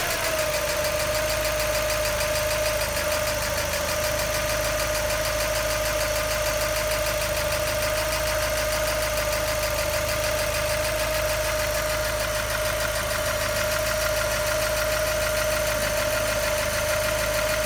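1999 Mazda Miata's 1.8-litre four-cylinder engine idling after a timing belt change, with a steady high whine held at one pitch and a fast light ticking over it: the noise that has appeared since the belt job.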